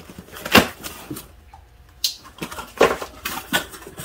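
A cardboard shipping box being opened by hand: scattered scrapes, rustles and knocks of cardboard as the taped flaps are pulled apart, with a short lull in the middle.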